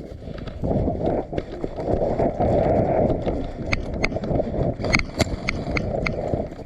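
Wind buffeting the microphone over rustling, scuffing movement, with a few sharp clicks in the second half.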